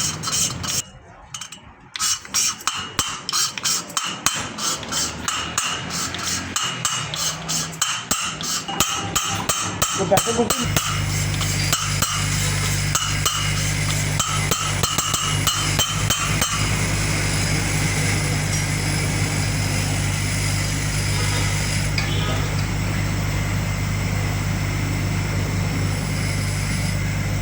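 Rapid, rhythmic metal tool strokes, about five a second, as a generator cylinder-head valve is dressed by hand. About eleven seconds in, a steady machine hum starts up and continues after the strokes stop.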